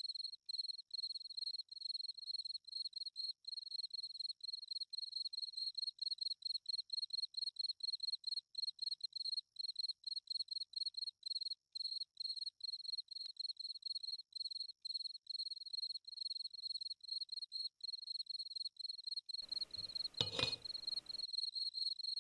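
Crickets chirping in a steady, even pulse of several high chirps a second. A short burst of noise interrupts it briefly near the end.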